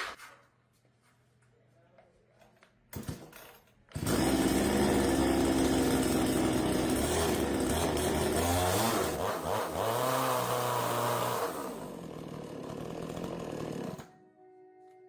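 Two-stroke engine of a Husqvarna 235 chainsaw starting suddenly about four seconds in and running loud, its speed wavering up and down, then dropping lower and stopping abruptly near the end. A few light knocks come before it.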